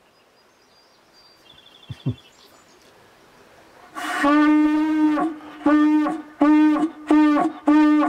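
Animal-horn hunting horn blown by mouth to call hunting dogs home: one long blast, then four shorter blasts in quick succession, each note bending in pitch at its start and end. Two soft knocks come about two seconds in, before the horn.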